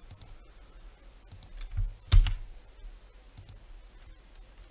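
A handful of scattered computer mouse clicks and keyboard keystrokes, about five in all, the loudest about two seconds in.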